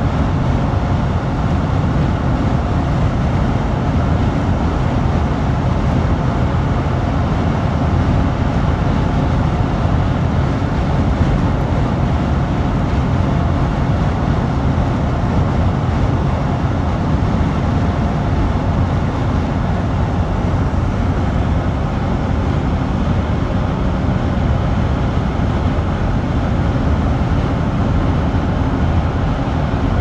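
Steady road noise of a car travelling at highway speed, the low drone of tyres and engine with wind rush, heard from inside the car.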